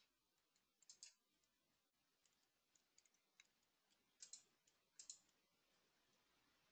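Near silence broken by faint, scattered clicks of computer keys being pressed, a little louder about a second in and again around four and five seconds in.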